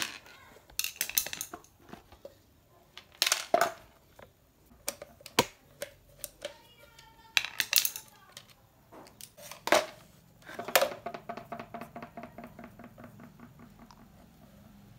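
Clicks and knocks from a plastic electric-fan base being taken apart, with small metal screws clinking. Near the end comes a rapid run of light ticks that dies away.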